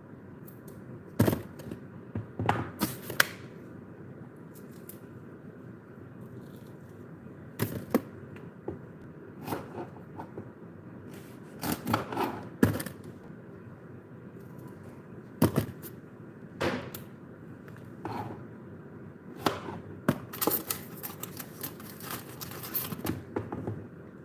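Irregular knocks and clicks, a dozen or so spaced unevenly, some in quick clusters of two or three, over a low steady background hum.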